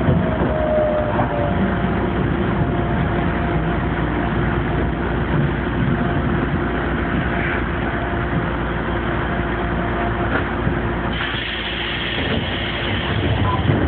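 Gakunan Railway electric train running along the track, heard from inside the front cab: steady running noise of wheels on rails under a faint steady hum. A brighter hiss joins about eleven seconds in.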